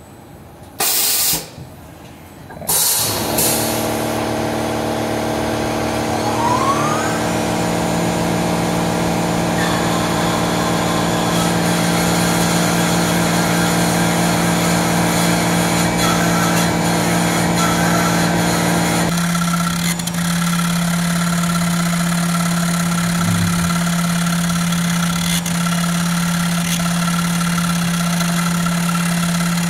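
Tormach 1100MX CNC mill milling an aluminium blank under coolant spray: a steady machine hum and whine starts about three seconds in after a few short hissing bursts. About two-thirds through, the hum changes to a single steady low tone with a higher whine above it.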